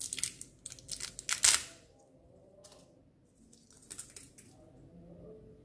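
Plastic packaging crinkling and crackling as a small pot is unwrapped and opened by hand. The crackles come thick for the first two seconds, loudest about a second and a half in, with a few quieter ones around four seconds in.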